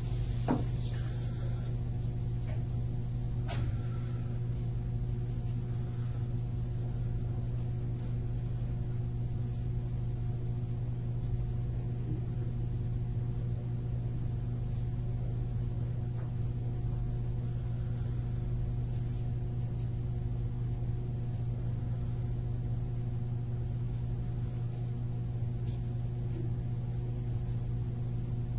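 Steady low hum of room tone, with a few faint clicks in the first few seconds.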